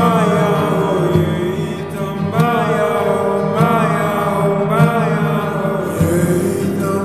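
Slowed-down, heavily reverbed Nepali pop song: a male voice singing long, drawn-out phrases over sustained accompaniment.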